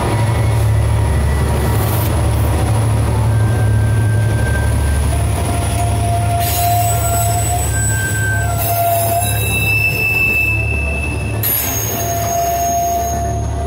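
Loaded freight wagons of a metre-gauge train rolling past with a steady low rumble, their wheels squealing against the rails in drawn-out high tones that come and go, most through the second half.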